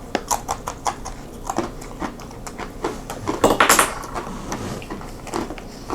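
Plastic snack packaging being handled and crinkled: scattered sharp crackles and clicks, with a short, louder rasping burst about three and a half seconds in.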